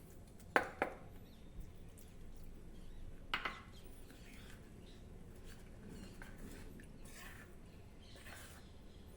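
A spoon clicks against a bowl a few times in the first four seconds while bajra flour and water are stirred into a thin batter, then only faint stirring.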